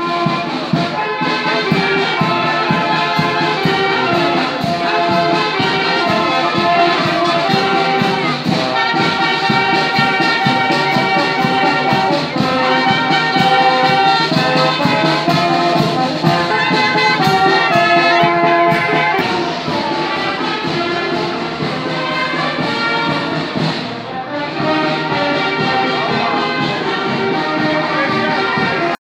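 Marching band of saxophones and brass instruments playing a march, with a steady drum beat under it.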